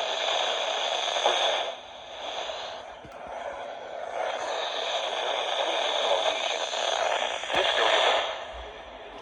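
Weather radio receiver hissing with static on a weak NOAA Weather Radio signal, the noise swelling and fading twice as the signal comes and goes.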